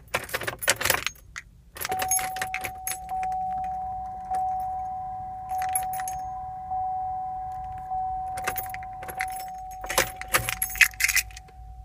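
Keys jangling, then the 2014 GMC Acadia's warning chime: one tone that sounds again about every second and fades after each strike, with more key jangling near the end. No engine cranking is heard; the SUV won't start.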